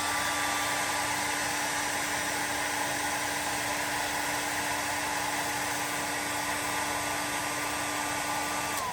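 Handheld hair dryer running on heat: a steady motor whine over the rush of air, switched off right at the end, its whine dropping away.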